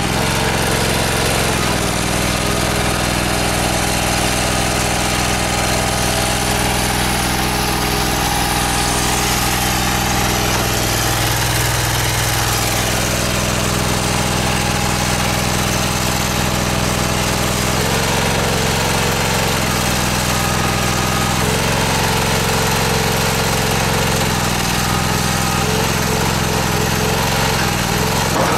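The stone splitter's engine runs steadily, driving its hydraulic pump. Its tone changes slightly a few times, about 2, 18 and 21 seconds in.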